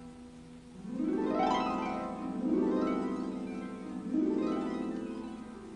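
Harp music: three sweeping arpeggio runs, each rising and falling back.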